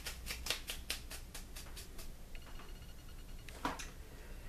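Soft, rhythmic rustle, about five strokes a second, of fingers rubbing a pinch of garlic powder over boiled broccoli florets in a pot, stopping about two seconds in. A single soft knock follows near the end.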